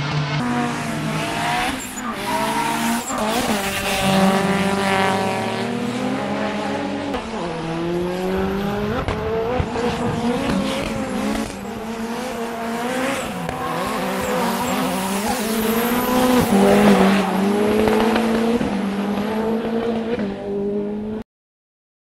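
Hyundai Genesis Coupe drift cars' engines revving hard up and down while drifting, with tyres screeching. The sound cuts off suddenly near the end.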